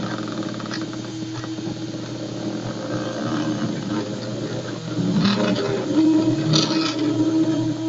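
Salvaged printer and copier unipolar stepper motors of a home-built desktop CNC running as the machine drives a pencil along an outline: a steady mechanical buzz with a humming tone and fine rapid stepping, with brief hissy bursts about five and six and a half seconds in.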